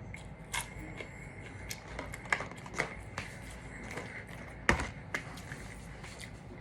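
Close-up eating noises: scattered short clicks, crunches and rustles of chewing and handling fast food and its packaging, about a dozen in all, the loudest about three-quarters of the way through.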